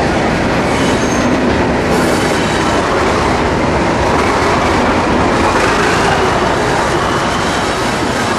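A pair of British Rail Class 37 diesel-electric locomotives with English Electric V12 engines passing close by, engines running over the wheel and rail noise. The sound is loud and steady, with a faint whistle slowly rising in pitch in the second half.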